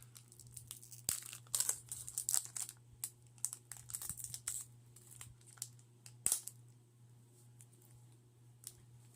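Pokémon trading cards and foil card packs being handled: short, scattered crinkles, rustles and light clicks that thin out over the last couple of seconds.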